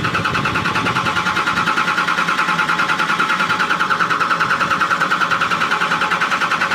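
Starter motor cranking an engine that does not catch, a steady high whine with a fast, even pulsing from the engine turning over. It is a crank-no-start fault put down to water in the fuel tank and fuel filter.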